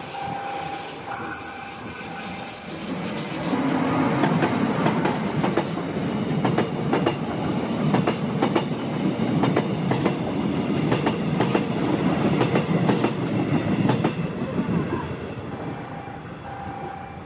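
Electric-locomotive-hauled passenger train passing close by: a rising rumble as it arrives, then a steady clatter of coach wheels over the rail joints, fading near the end as the last coach goes by. A short repeating beeping tone sounds at the start and again just before the end.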